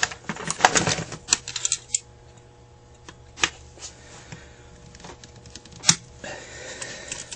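Small metal parts of a Carter AFB carburetor being handled on a workbench: a quick run of clicks and clatter in the first two seconds, then single sharp clicks about three and a half and six seconds in, and a soft rustle near the end.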